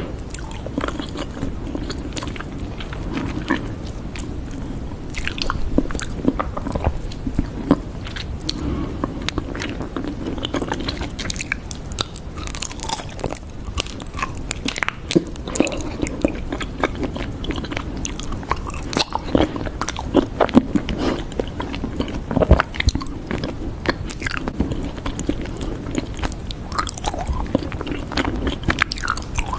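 Close-miked ASMR crunching and chewing-like sounds: dense, irregular crackles and snaps over a soft, continuous low rustle.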